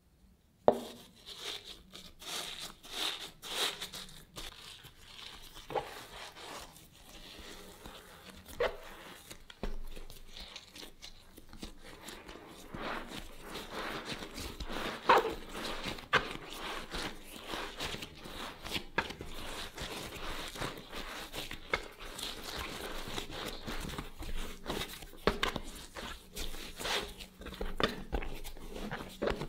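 Hands kneading, pressing and stretching a sticky whole-wheat dough studded with chopped almonds and black sesame seeds on a plastic cutting board: soft tearing and crunching noises with irregular knocks, the sharpest just under a second in.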